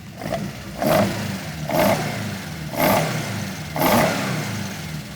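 Car engine idling, revved in four short blips about a second apart.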